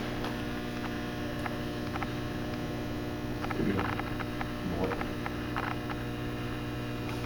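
Steady electrical mains hum, a low buzz with a stack of higher overtones, with scattered faint clicks and taps over it.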